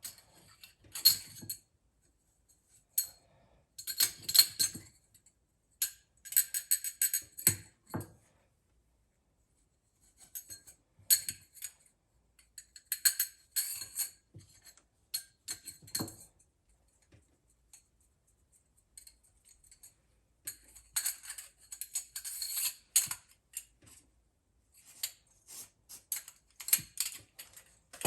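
Hard household objects clinking and clattering in irregular bursts as they are handled, with brief ringing tones and quiet gaps between the bursts.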